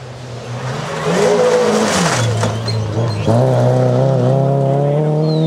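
Rally car engine at full throttle on a gravel stage, revs climbing as it approaches. The revs drop sharply about two seconds in, then pull steadily upward again, with a rush of tyre and gravel noise around the drop.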